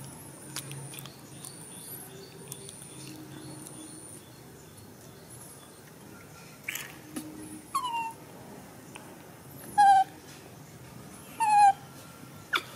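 Baby monkey giving three short whimpering squeals in the second half, each sliding down in pitch.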